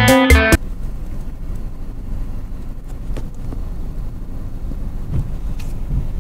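Car cabin noise: a steady low engine and road rumble heard from inside the car, with a few faint clicks. A guitar music track cuts off suddenly about half a second in.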